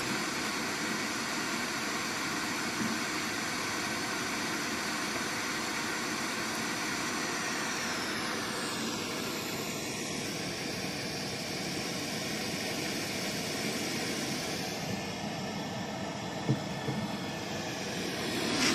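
Steady rushing noise with faint steady tones, picked up inside a 50 mm cased borehole 18 m deep, with a single thump near the end. The noise is the sound the defence ministry calls underground air or wind, which the recordist instead takes for tunnel work below.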